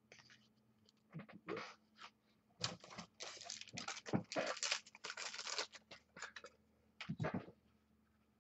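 Football trading cards and their packaging being handled: a string of dry rustles and scrapes, densest in the middle, with a last one near the end.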